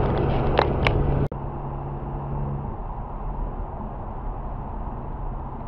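Road and engine noise inside a car at motorway speed, picked up by a dashcam: a loud steady rumble with two sharp clicks, then about a second in it drops suddenly to a quieter, even tyre-and-wind rush.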